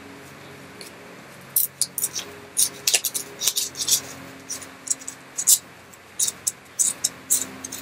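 Paper and plastic packaging being handled and opened: quick, irregular crinkles, rustles and scratchy clicks that start about a second and a half in.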